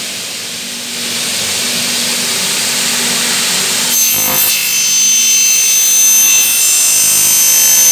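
Double-head aluminium cutting saw running with both head motors on; about four seconds in the blades begin cutting through an aluminium profile, adding a louder, high ringing whine that holds to the end.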